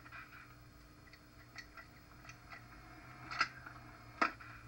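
A Winchester Model 1897 pump shotgun fires once, a single sharp report about four seconds in, with a few lighter clicks before it. The sound is thin, as if played back through a television speaker.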